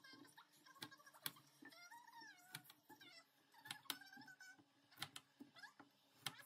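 Kitchen knife cutting Brussels sprouts on a wooden cutting board: sharp knocks as the blade strikes the board, about one a second. Faint sliding, voice-like sounds run between the knocks.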